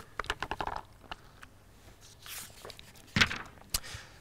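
Handling of a plastic sports water bottle: a quick run of small clicks from its flip-top cap in the first second, then a soft rustle and a sharper knock about three seconds in, with a last click shortly after.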